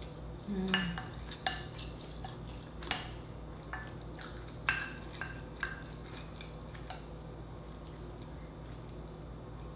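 Wooden spoon tapping and scraping against a glass bowl while scooping rice, with several sharp clinks that ring briefly, spread over the first seven seconds.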